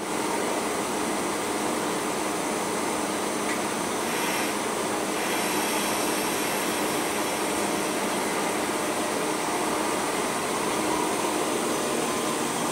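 ICE 3 high-speed electric train close by, its cooling fans and electrical equipment whirring steadily with a faint hum, with a short hiss about four seconds in.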